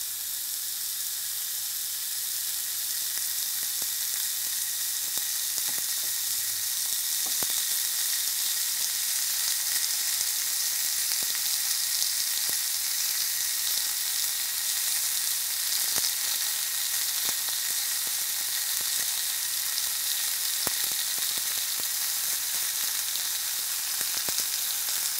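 A beef cuvette searing on a grill grate over hot coals: a steady fat-and-meat sizzle that builds a little over the first few seconds and then holds, with a few faint crackles. This is the high direct heat that crisps the outside.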